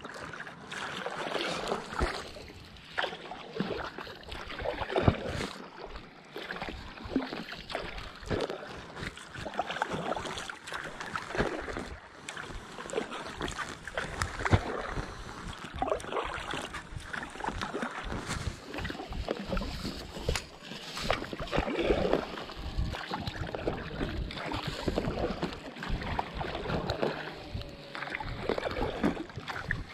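Double-bladed kayak paddle strokes, the blades dipping and pulling through calm lake water with splashes and drips, about one every second or two.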